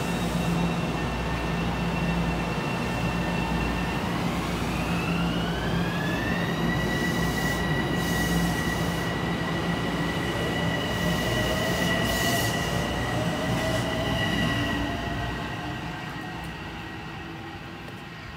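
Electric multiple-unit commuter train pulling away and accelerating past: its traction motors whine in steady tones that glide up in pitch about four seconds in, over wheel and rail rumble. The sound fades near the end as the train draws away.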